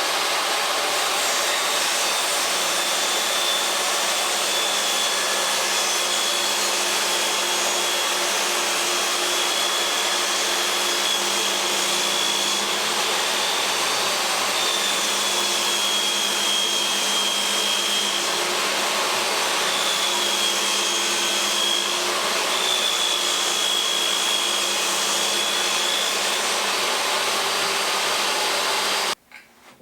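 DeWalt DW745 table saw running with a steady, loud motor whine that dips slightly in pitch a few times as it cuts; it stops abruptly near the end.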